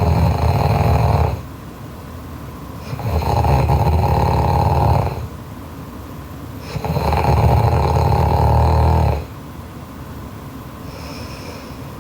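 A sleeping girl snoring loudly: three snores about two seconds long, one roughly every four seconds, the first already under way and ending about a second in, with quieter breathing between.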